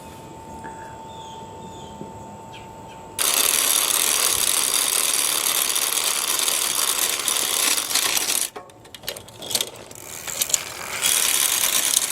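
Road bike chain being run through the drivetrain by turning the cranks while it is degreased: a steady mechanical clatter of chain and gears that starts about three seconds in, pauses briefly, then picks up again near the end.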